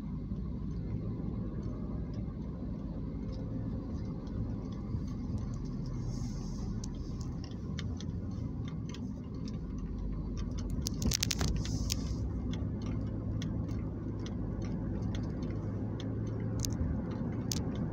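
Steady low rumble of a car's engine and tyres heard from inside the cabin while driving, with scattered light clicks and a brief burst of clicking about eleven seconds in.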